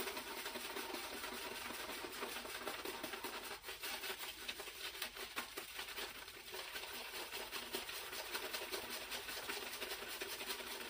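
Synthetic shaving brush scrubbing soap lather onto a stubbled face, a steady scratchy swishing of rapid strokes.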